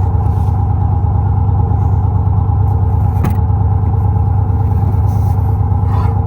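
Vehicle engine running steadily: a loud, even low drone with a steady hum above it and a faint click about three seconds in.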